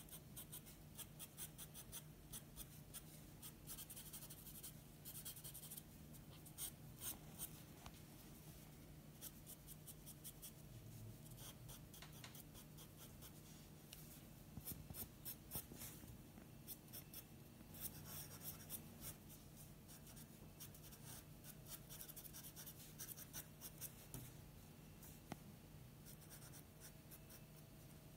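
Graphite pencil scratching on drawing paper in runs of quick short strokes, hatching fur; faint.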